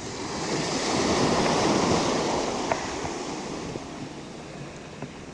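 Ocean surf: a small wave breaking and washing up the shore, swelling over the first two seconds and then fading away as the water runs back.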